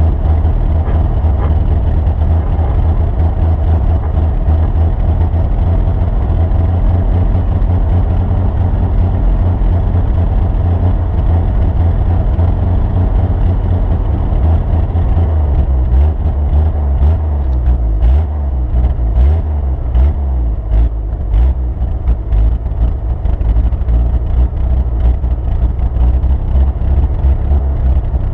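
Motor vehicle driving with a loud, steady deep rumble. From about halfway through, irregular knocks and rattles come in over it.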